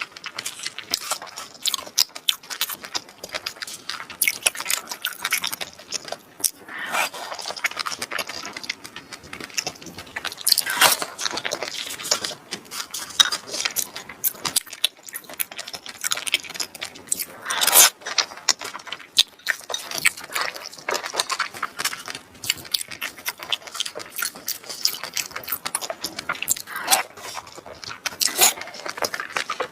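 Close-miked eating sounds of seafood: wet chewing and smacking with a dense run of sharp mouth clicks, louder in a few places.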